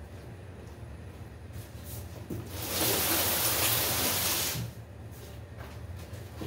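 Large cardboard box holding a lawnmower dragged across a bare concrete floor: a scraping hiss lasting about two seconds, starting a little before the middle.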